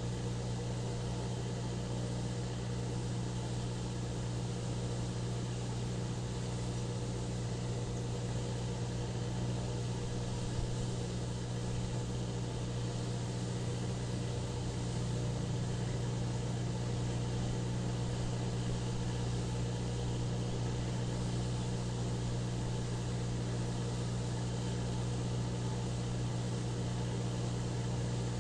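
Steady low engine hum with road traffic, trucks and cars driving past, under an even hiss.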